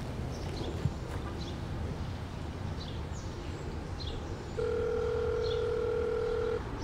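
Telephone ringback tone: one steady ring of about two seconds, starting about two-thirds of the way in, the signal that the call is ringing through at the other end. Short high bird chirps come and go underneath, with a single click about a second in.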